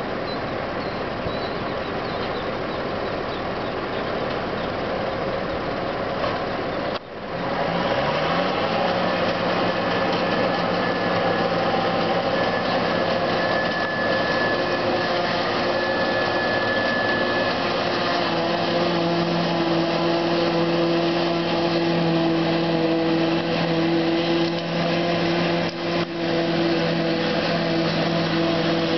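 McCormick 140 tractor pulling a New Holland 790 forage harvester as it chops barley, a steady engine and machine drone with a low steady hum. The sound dips briefly about seven seconds in and comes straight back.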